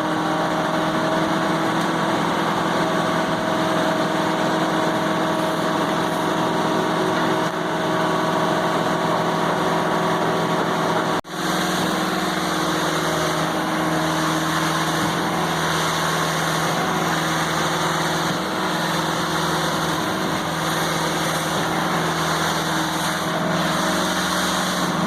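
An engine running steadily at idle. It breaks off for an instant about eleven seconds in and comes back slightly changed in tone.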